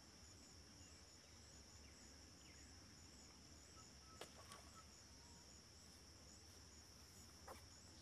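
Faint, steady, high-pitched insect chorus with a pulsing edge, like crickets. Two faint sharp clicks come about four seconds and seven and a half seconds in.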